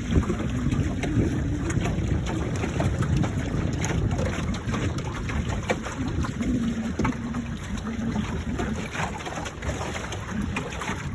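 Y-15 sailing dinghy under sail: wind buffeting the microphone and water rushing and splashing along the hull, with frequent small crackles and a low hum that comes and goes.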